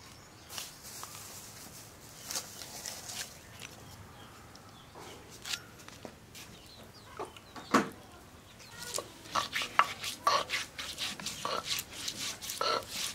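Chickens clucking, mixed with sharp clicks and knocks of kitchen work: green chillies being cut on an upright blade, then a stone roller crushing ginger on a flat grinding stone. The knocks and clucks come thick and fast in the last few seconds.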